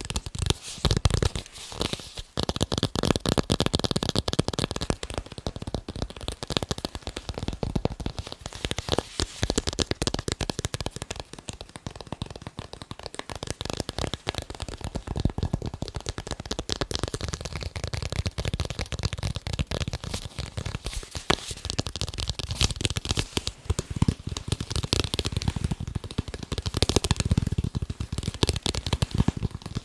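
Fast tapping on sports balls: a dense, unbroken run of quick taps, many each second.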